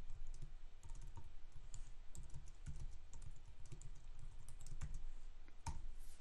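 Typing on a computer keyboard: a run of quick, irregular keystrokes, with one louder key click near the end.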